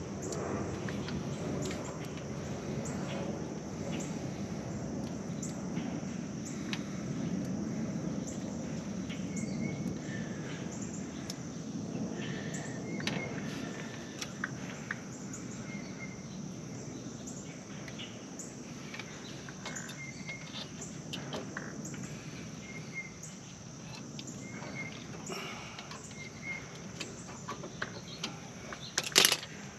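Outdoor ambience: a steady low rumble and a steady high hiss, with short bird chirps every few seconds. Light metal clicks come from brake parts and tools being handled, and a sharp metallic clatter sounds near the end as brake spring pliers are worked on the drum brake shoes.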